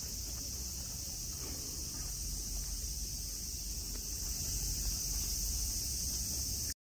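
A chorus of summer cicadas with a steady, high-pitched drone, over a low rumble of distant city traffic, with a few faint crunches from sika deer cropping the lawn grass. The sound cuts off abruptly near the end.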